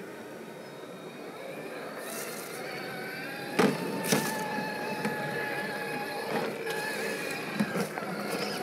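Electric motor and gear drivetrain of an Axial SCX6 1/6-scale RC rock crawler whining as it climbs over boulders, the pitch rising about three seconds in and then holding steady. Two sharp knocks against the rock come just after the pitch settles, and another near the end.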